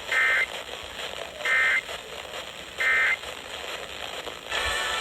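Three short bursts of warbling Emergency Alert System (SAME) data tones over radio hiss, each about a third of a second long and evenly spaced: the end-of-message signal closing a weather warning broadcast. A louder, noisier signal cuts in near the end.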